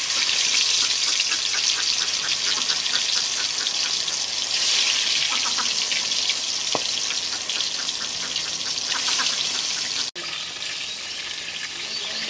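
Pieces of fish sizzling steadily as they deep-fry in hot oil in a wok. The sizzle breaks off for an instant about ten seconds in, then carries on a little quieter.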